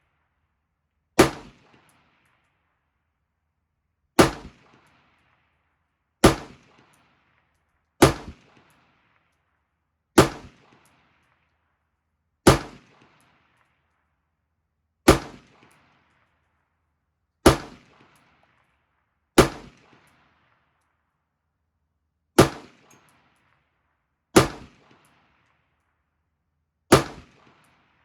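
An AR-15 carbine firing slow, single aimed shots, one every two to three seconds: twelve sharp reports, each followed by a short fading echo.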